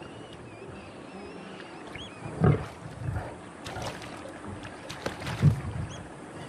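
Lion growling in short calls, loudest about two and a half seconds in and again about five and a half seconds in, over a steady outdoor background with small high chirps.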